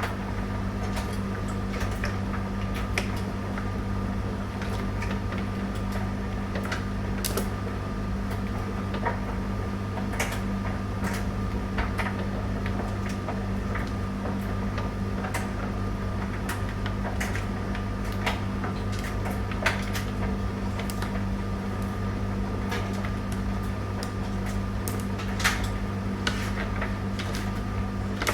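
Tumble dryer running: a steady motor and drum hum with irregular clicks and taps from the tumbling load.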